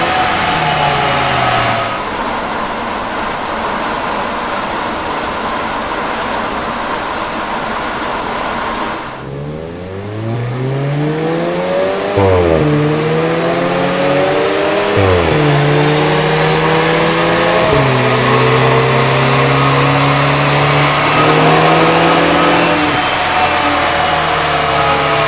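2021 VW Golf GTI Mk8's stock 2.0-litre turbocharged four-cylinder on a chassis dyno. Its note falls as it slows from a run, then after a steady rush with no clear note, it accelerates hard from about ten seconds in, rising in pitch and dropping sharply about four times as it shifts up through the gears.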